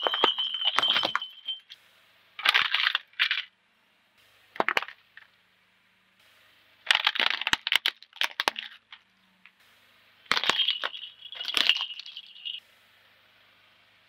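A car tyre crushing brittle objects, ceramic mugs and a plate among them: about five separate bursts of cracking, crunching and clinking breakage with short quiet gaps between, some with a ringing clink of shards.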